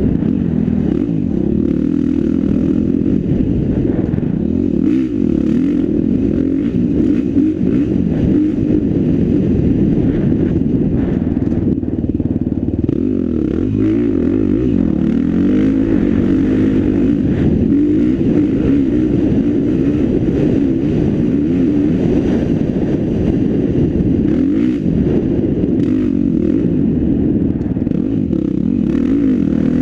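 Dirt bike engine running hard over a dirt trail, its pitch rising and falling continuously as the rider works the throttle and gears.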